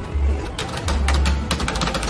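Rapid clicking and tapping of an arcade reaction game's plastic push buttons as two players slap them fast, starting about half a second in, with deep music bass underneath.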